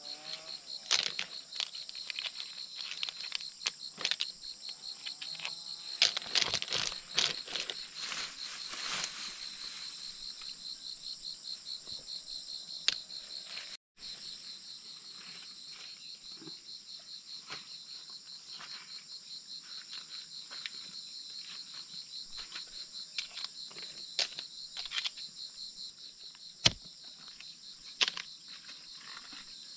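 Steady chorus of forest insects, a fast pulsing trill. Over it come short rustles, clicks and knocks from hands working through leaves and wet mud, a few of them much louder.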